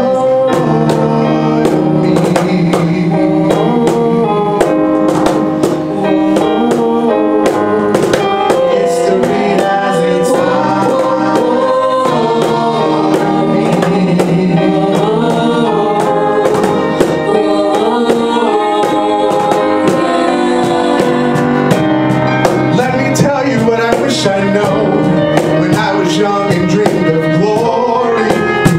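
Live band music: a male lead singer with backing vocal harmonies over piano, with drum hits throughout.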